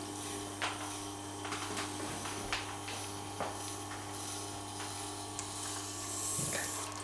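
Tormek wet grinder running, its motor giving a steady low hum, while a serrated knife blade is drawn slowly along the edge of the fine SG stone wheel, with a few faint ticks and scrapes from the blade on the stone.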